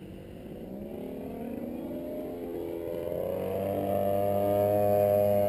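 Radio-controlled model airplane's engine running at high power, rising in pitch from about a second in and growing steadily louder as the plane comes closer.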